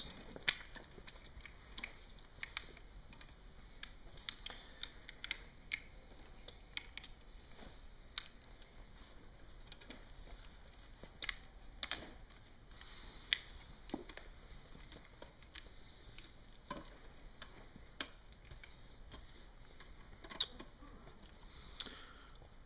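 Scattered light metallic clicks and taps of a 4 mm Allen key being fitted into and turned in the seat bolts as they are tightened in a star pattern.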